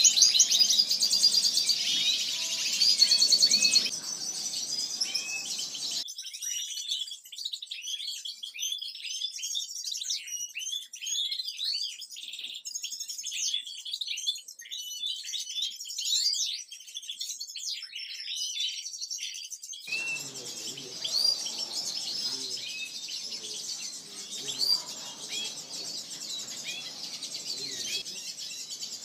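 A flock of European goldfinches and other small cage finches chirping and singing together, a dense overlapping twitter of quick high calls and trills. For a stretch in the middle only the high calls remain, with the lower background gone.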